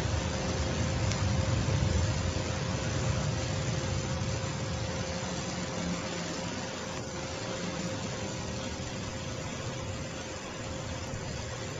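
A steady low rumble under an even hiss, with a constant faint hum, growing slightly quieter toward the end.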